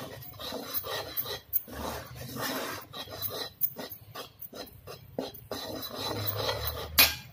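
Steel spoon scraping and stirring dry wheat flour and ghee residue around a metal kadhai: a run of gritty rasping strokes of metal on metal, with one sharp knock near the end.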